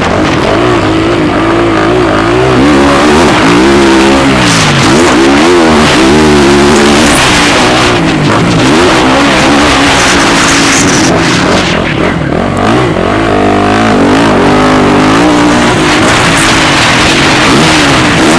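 Motocross bike engines racing, revving up and dropping back over and over, the pitch rising and falling every second or so.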